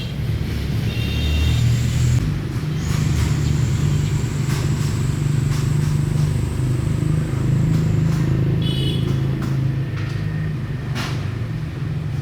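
High-wheel string trimmer's 200cc engine running steadily under load, with scattered sharp ticks over the steady engine sound.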